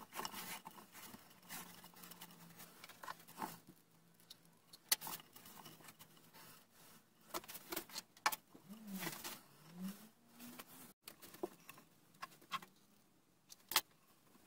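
Rope being wound by hand around a wooden post: faint scattered rustles and scrapes of the fibre against wood and hands, with a few sharp clicks and taps.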